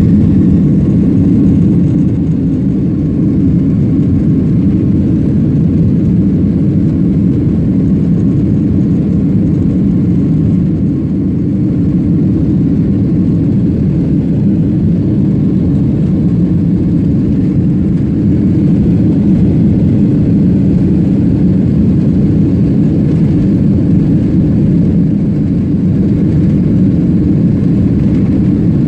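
Steady engine and airflow noise of a jet airliner heard inside the passenger cabin, a loud, even, low rumble with no marked change in pitch.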